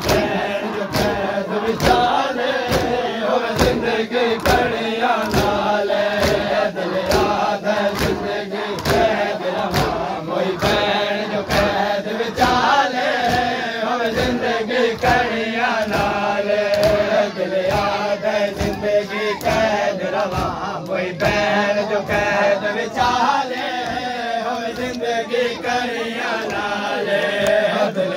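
Men chanting a Punjabi noha in unison while beating their chests with open palms (matam). The hand strikes fall in a steady beat under the voices.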